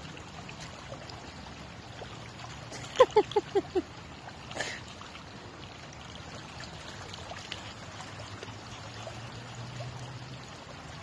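Shallow water trickling steadily over stones. About three seconds in, a quick run of five short, loud sounds, each dropping in pitch, cuts across it.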